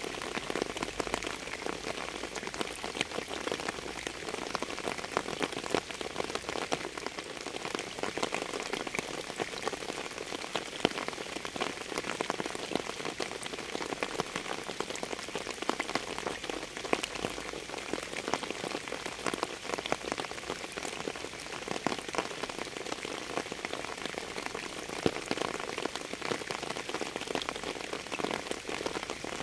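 Steady rain falling on a surface: an even hiss scattered with many separate drop hits, holding at one level throughout.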